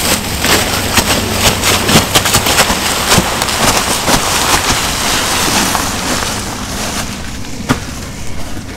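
Dry fallen leaves crunching and crackling under hurried footsteps, as two people drag a deer through the leaf litter. It is loud and busy at first, then fades after about six seconds as they move away.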